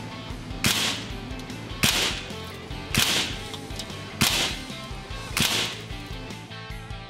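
SIG Sauer ASP20 gas-piston breakbarrel air rifle, suppressed, fired five times about a second apart, each shot a sharp report with a short fading tail. Background rock music plays underneath.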